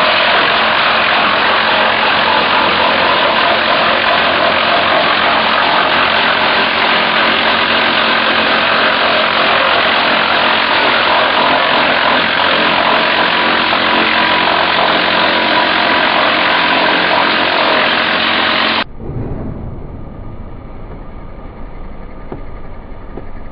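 Wood-waste and veneer chipper, type 500 EB/2, running with its knife head chipping round lengths of wood fed in by the conveyor: a loud, dense, steady grinding noise. About 19 seconds in it cuts off abruptly to a quieter low rumble.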